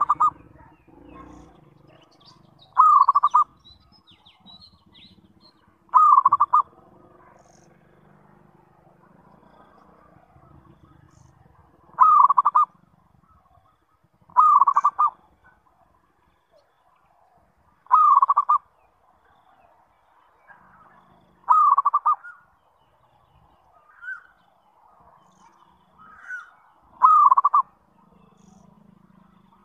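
Zebra dove (perkutut) cooing: a short coo phrase, under a second long, repeated about every three seconds with a few longer gaps. Two softer single notes come between phrases near the end.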